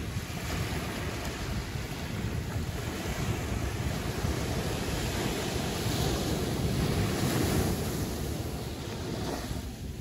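Caribbean Sea waves breaking in a steady wash of surf, swelling to its loudest about six to eight seconds in and easing off near the end.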